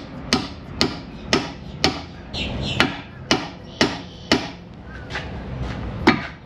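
Hammer blows on a steering knuckle, about two strikes a second with a pause of over a second near the end, to drive out a ball joint stud that is seized in the knuckle.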